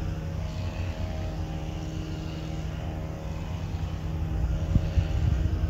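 A distant engine drones steadily with an even hum, under low wind rumble on the microphone that turns gustier near the end.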